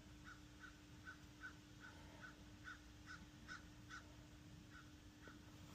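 Faint, distant bird calls: a run of short, high chirps about two to three a second that stops near the end, over a faint steady hum.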